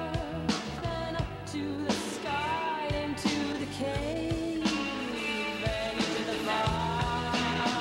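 Rock band music: drums keep a steady beat of about two hits a second under a bass line and a melody that slides up and down in pitch.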